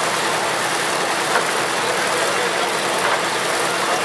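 Old threshing machine running steadily, a dense mechanical whirr and rattle with a few short knocks.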